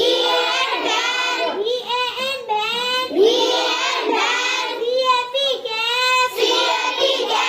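Children's high voices reciting in a continuous sing-song chant, the pitch rising and falling with each word.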